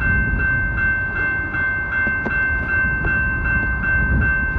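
Grade-crossing warning bell ringing in an even rhythm, about two to three strikes a second, over the low rumble of a passing train.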